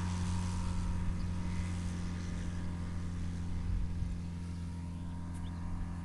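Flightstar SC II ultralight's engine running as the plane climbs away after takeoff: a steady low hum.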